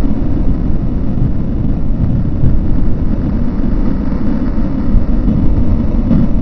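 Loud, steady low rumbling noise with no distinct events.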